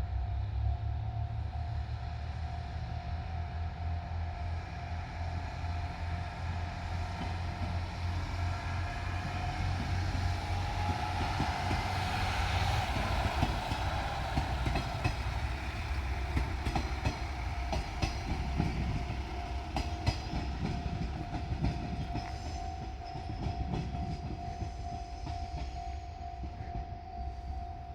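A JR Shikoku Series 1500 diesel multiple unit passes over a level crossing with its diesel engine running. Its wheels click over the rail joints, loudest about halfway through, while the crossing's warning signal holds a steady tone.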